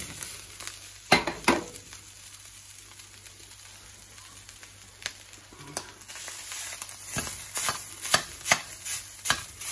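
Leftover cooked rice going into a stainless-steel frying pan of sautéed onions and carrots: two sharp knocks about a second in as the bowl is emptied, then a soft steady sizzle. From about seven seconds a utensil clicks and scrapes against the pan as the stirring begins.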